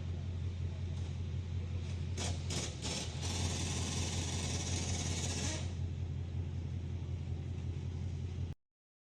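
Car engine running at a steady idle, a constant low hum. About three seconds in, a loud hiss of air or spray joins it for a couple of seconds; the sound cuts off abruptly near the end.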